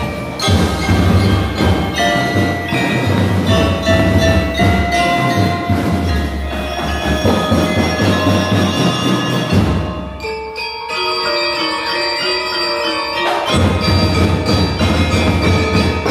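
Drum and lyre corps playing, with marimbas, xylophones and bell lyres carrying the tune over drums. About ten seconds in the drums drop out for some three seconds, leaving only ringing mallet notes, then the full band comes back in.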